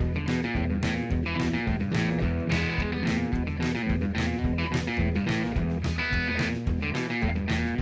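Background music: a rock track with electric guitar over a steady beat.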